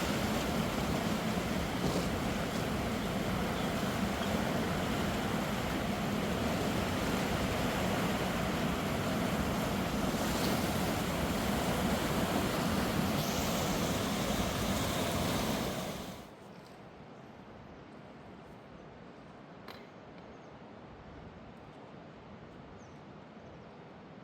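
Rushing mountain river: a steady, loud rush of white water that cuts off abruptly about sixteen seconds in, leaving only a faint hiss with a few small clicks.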